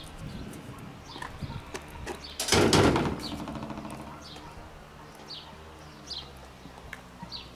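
A metal garden gate clanks shut about two and a half seconds in, the loudest sound. A bird gives short high chirps about once a second throughout.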